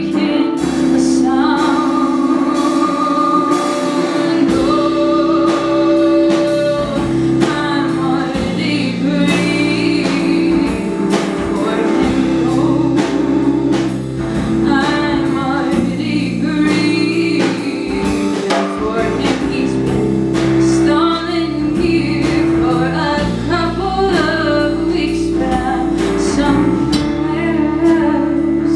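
A live band playing a song: a woman singing lead over acoustic guitar, electric bass and drums.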